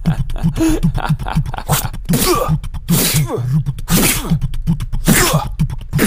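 Sound effects made with the mouth: a beatboxed run of quick clicks and low thumps, with about five loud breathy bursts that fall in pitch, like vocal whooshes and hits.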